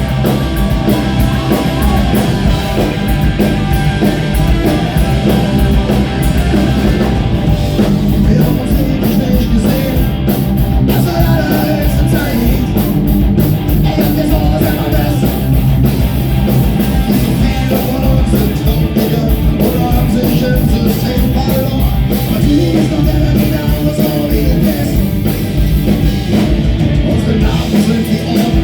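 Punk rock band playing live and loud, with distorted electric guitars over a driving, steady beat.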